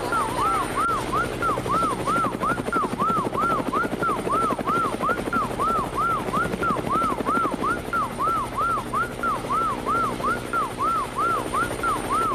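Police siren on a fast yelp, its pitch sweeping up and down about three times a second, over the rapid thudding chop and engine hum of a helicopter.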